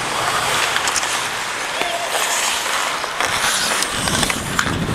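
Ice hockey skate blades scraping and carving the ice in a steady hiss, heard close up from a skating player, with scattered sharp clicks of sticks and puck on the ice.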